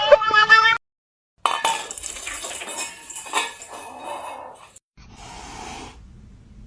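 Music ends under a second in; after a brief silence comes about three seconds of clinking and clattering of hard objects such as dishes and cutlery, followed by a faint steady hiss.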